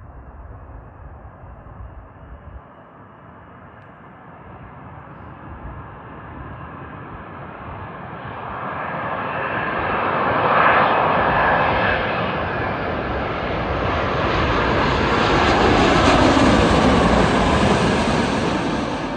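Boeing 787-10 Dreamliner jet engines coming in to land and passing close by. The sound builds from faint to loud, peaking about halfway in and again near the end, with a falling whine as the aircraft goes past.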